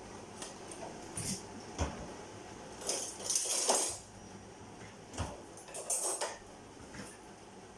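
Cookware and utensils clattering as food is added to a frying pan: a few separate knocks, with a longer, louder rattling rush about three seconds in and another shorter one near six seconds.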